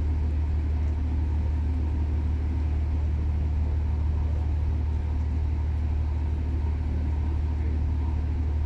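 A large engine running steadily, a constant low drone with no change in pitch or level.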